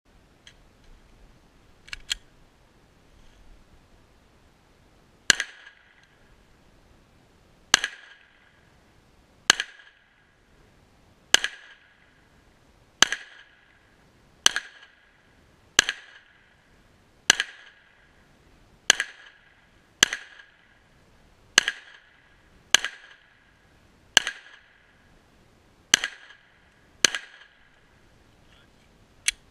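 Glock 34 9 mm pistol fired about sixteen times at a slow, steady pace, one shot every second or two, each sharp crack followed by a short ring of echo. Two quieter clicks come about two seconds in, before the first shot.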